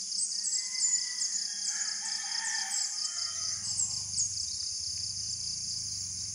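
A rooster crowing over a steady, pulsing trill of insects. A low hum comes in about three seconds in.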